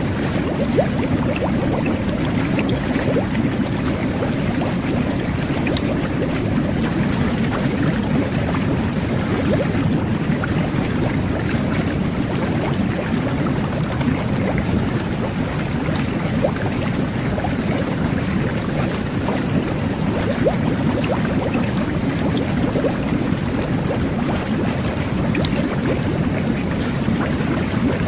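Jet bath (whirlpool tub) running: the water jets churn the bathwater into a steady bubbling rush, with scattered small pops.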